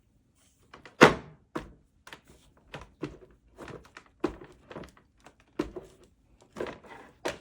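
Hard plastic knocks and clunks, a dozen or so irregular hits with the loudest about a second in, from a Tineco iFLOOR 3 Breeze cordless wet-dry floor cleaner being handled and set down onto its charging base.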